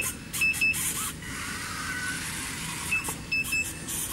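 Small DC gear motors of an Arduino robot car whirring as it drives, with several short, high beeps of one pitch, mostly in pairs, near the start and again about three seconds in.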